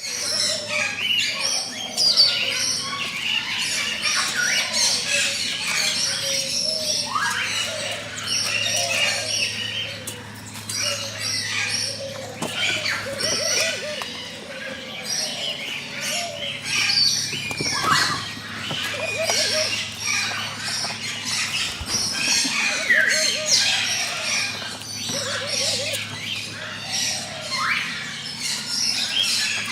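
Many birds chirping and squawking in a dense, continuous chorus of short calls, over a steady low hum.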